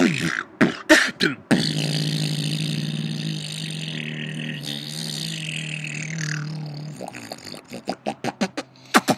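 Human beatboxing: a few sharp drum-like hits, then a long held low hum with a hiss above it that slides down in pitch near its end, then a quick run of drum-like beats from about seven seconds in.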